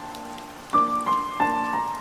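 Slow, gentle melody of single struck notes over steady rain. A held note fades through the first half, then new notes strike a few times in quick succession.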